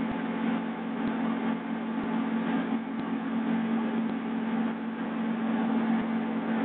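Helicopter cabin noise: a steady engine and rotor drone with a strong low hum under a broad hiss.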